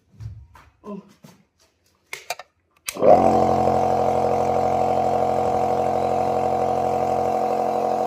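Electric compressor nebulizer switched on about three seconds in, after a couple of clicks, its motor then running with a loud, steady hum.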